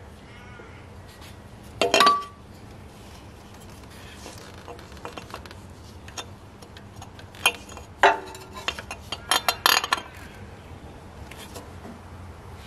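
Hard clinks and knocks of parts and tools being handled while the thermostat housing is fitted over a new thermostat in the engine bay. There is one loud knock about two seconds in, then a cluster of sharp clinks from about seven to ten seconds.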